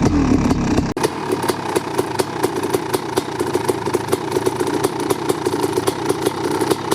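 1988 Kawasaki KX500's single-cylinder two-stroke engine, fitted with an FMF Fatty pipe and Dep silencer, warming up after a cold start: revs fall away during the first second, then it settles into a steady idle with crisp, evenly spaced exhaust pops.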